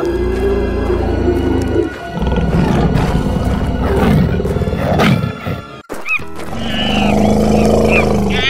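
Animal roars from animated tigers and dinosaurs over background music, loudest in the first half; the sound drops out briefly just before six seconds in, then the music carries on.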